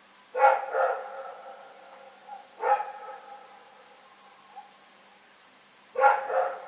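Dog barking: two quick barks, a single bark about two seconds later, then another pair near the end, each trailing off in a short echo.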